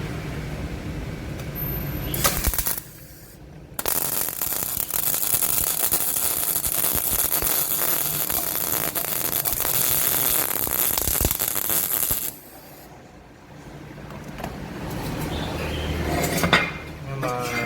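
Gasless flux-core MIG welder arc on 2.5 mm steel. A short burst of arc comes first, then a steady crackling arc runs for about eight seconds and stops suddenly. A few knocks follow near the end.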